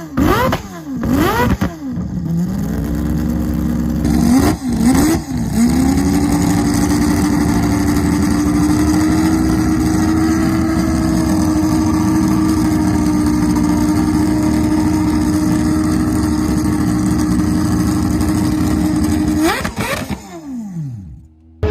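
Mazda 767B's four-rotor rotary racing engine being revved in quick blips, two more about four and five seconds in, then held at a steady fast idle. Near the end it gives one last sharp rev and is switched off.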